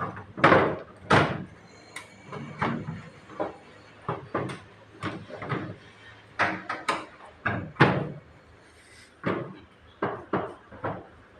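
A series of irregular knocks and clunks, about fifteen hard impacts at uneven intervals, some louder than others.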